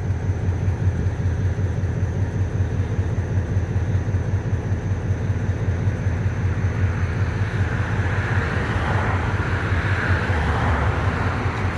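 EMD MP15 switcher locomotive's diesel engine running steadily just after a hard cold start on weak batteries, a low rumble throughout. A hissing rush rises over it about eight seconds in.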